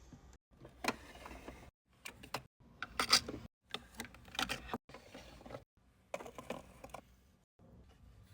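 Small plastic miniature food pieces and containers being handled and set into a toy fridge: light clicks, taps and rustles in short bursts, broken by several abrupt silent gaps.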